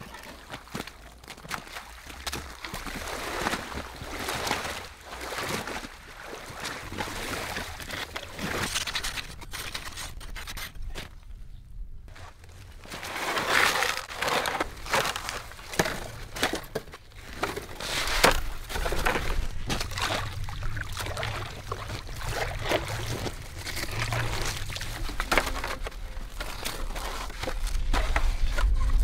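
Lake water sloshing and dripping, with heavy ice blocks scraping and knocking, as blocks of freshly cut lake ice are hauled out of the water and stacked on a wooden pallet. A low rumble comes in about two-thirds of the way through.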